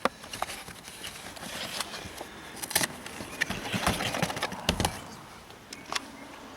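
Handling noises: several sharp clicks and knocks with rustling in between, as the hand truck's wheel parts and rubber inner tubes are handled.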